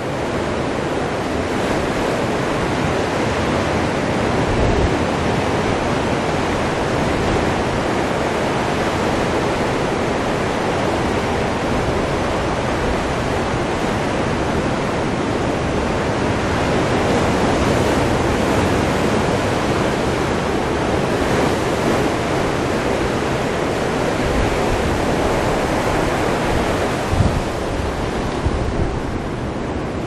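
Surf breaking and washing up a sandy beach, a steady rushing wash of waves, with wind buffeting the camera's microphone, most strongly near the end.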